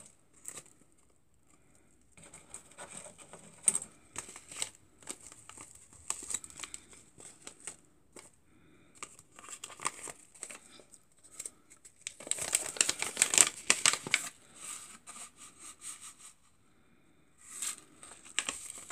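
Paper seed packets of marigold seeds rustling and crinkling as they are handled and one is opened, in irregular bursts with the busiest crinkling about two-thirds of the way through.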